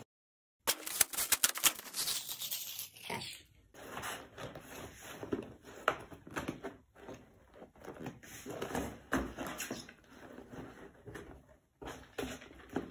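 A parcel being unwrapped by hand: irregular rustling and tearing of the packaging, with many small clicks and scrapes.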